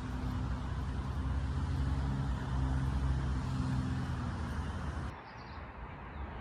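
A motor vehicle's engine running, heard as a steady low hum that breaks off abruptly about five seconds in.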